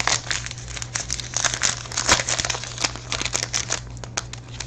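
Crinkling and rustling of plastic packaging and trading cards being handled, a dense run of small crackles with a steady low hum underneath.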